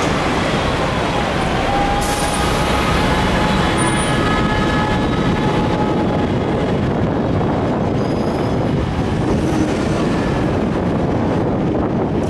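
Hong Kong double-decker tram running along its street track, a steady running noise heard from the upper deck, mixed with road traffic. A faint high whine shows in the first half.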